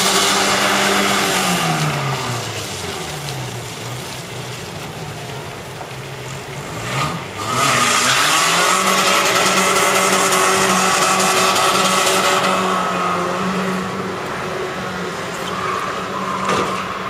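Toyota Hilux pickup's engine held at high revs as it spins its wheels through a drift on wet ground. The revs drop soon after the start, climb again around seven seconds, hold high for several seconds, then fall and rise once more near the end. A hiss of spinning tyres and water spray rides over the engine in the loudest stretch.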